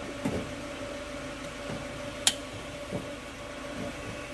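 A steady hum with light knocks and clicks as the ECM circuit board is handled, and one sharp click about two seconds in.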